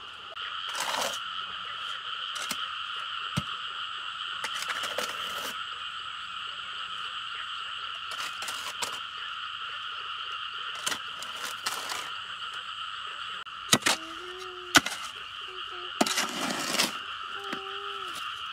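A steady chorus of calling animals, with scattered knocks and rustling bursts throughout and a few short, whining calls near the end.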